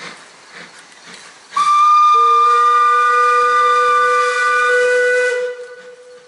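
Two steam locomotive whistles sounding together, loud and steady. A higher-pitched whistle starts about a second and a half in, a lower one joins half a second later, and both cut off together after about four seconds, over a faint hiss of escaping steam.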